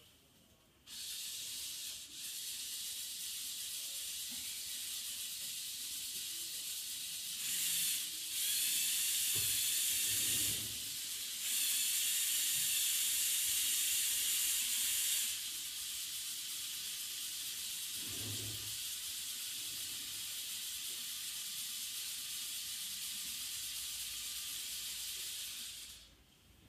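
Small electric motors and plastic gear train of a LEGO Technic crane model running and raising its boom: a steady high whir that switches on about a second in and off near the end, louder for several seconds in the middle.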